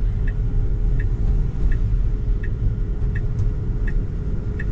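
Steady low road and tyre rumble inside a Tesla's cabin, with the turn signal ticking evenly about once every 0.7 seconds as the car makes a right turn.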